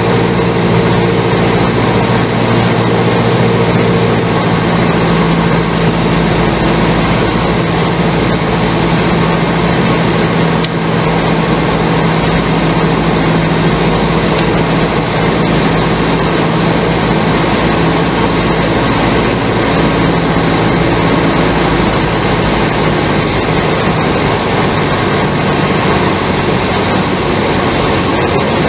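Cessna 172 in flight, heard from inside the cabin: the steady drone of its piston engine and propeller over loud wind noise. Some of the engine's tones fade a few seconds in, and the drone carries on steadily.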